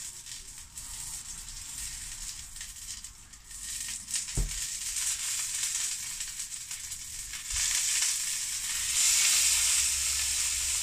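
Duck breast sizzling in a frying pan, a steady high hiss of fat frying that grows louder in the last few seconds. A single knock comes about four seconds in.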